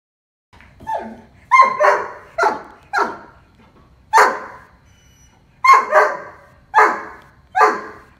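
A Doberman barking: about ten loud, sharp barks at irregular spacing, some in quick pairs, starting about half a second in.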